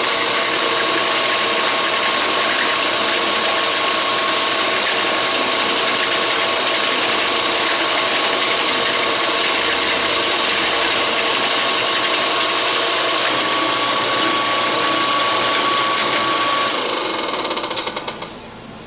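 Benchtop drill press running steadily with a steady whine, switched off about three-quarters of the way in and spinning down near the end.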